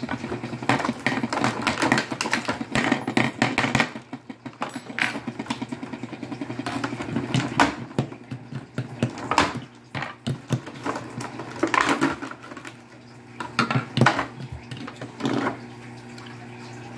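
Clear plastic blister packaging crinkling and clicking as it is handled and cut open, with plastic figure parts clicking together. A low steady hum runs underneath.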